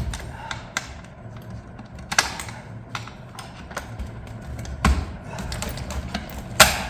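Scattered metal clicks and clacks as a large double snap ring is worked out of an Allison six-speed automatic transmission, the loudest clack near the end, over a steady low hum.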